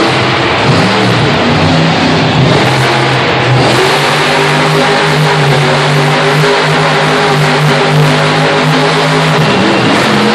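Monster truck engine revving hard, its pitch swinging up and down, then held at one high, steady pitch for about six seconds before easing off near the end.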